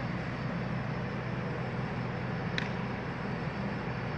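Steady low hum over a noisy outdoor background, with one short sharp click about two and a half seconds in.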